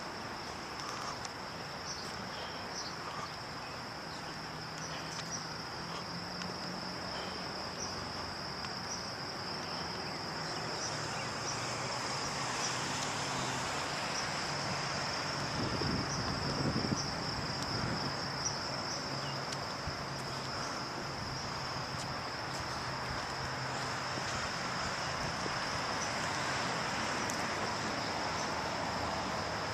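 A steady high-pitched insect chorus trilling over the even hum of distant road traffic, with a vehicle passing closer about halfway through as a brief low swell.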